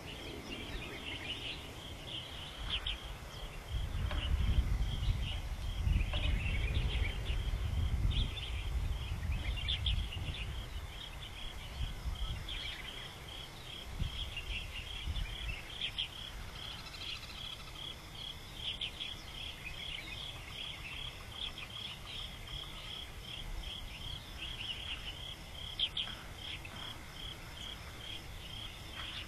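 Outdoor insects chirping in a steady, evenly pulsing high trill. A low rumble rises underneath from about four to ten seconds in, then fades.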